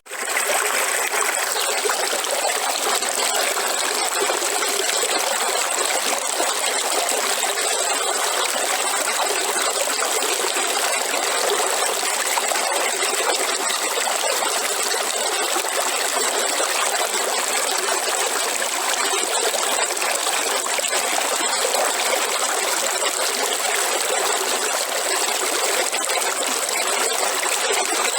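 Steady rushing and trickling of a river flowing, even and unbroken, after a momentary dropout at the very start.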